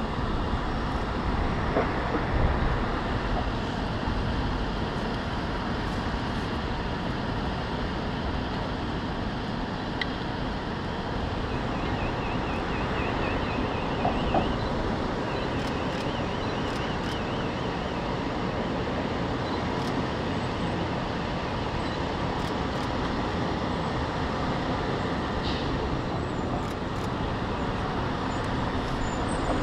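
Fire engines' diesel engines running: a steady rumble of vehicle noise. Around the middle, a faint high warbling tone comes in twice, briefly.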